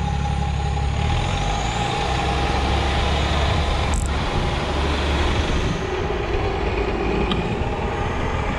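City bus's diesel engine running close by, a steady low rumble that weakens a little past halfway. A short sharp click about four seconds in.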